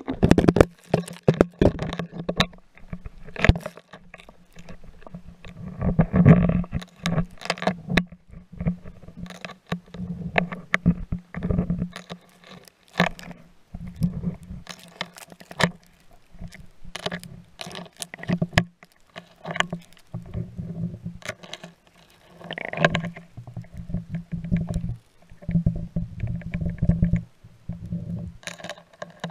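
Underwater sound picked up by a GoPro in its waterproof housing beneath lake ice: many irregular muffled clicks and knocks over a low hum that comes and goes.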